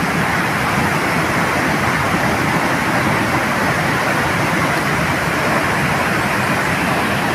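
Wide curtain waterfall pouring over a rock ledge into a plunge pool: a steady, loud rush of falling water with no breaks.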